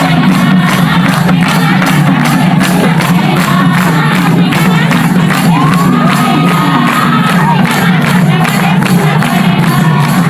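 Loud dance music with a quick, steady beat, and a crowd cheering and shouting over it.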